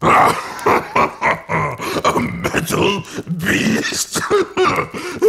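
A deep cartoon-demon voice making guttural vocal noises without clear words, starting suddenly and going on without a break.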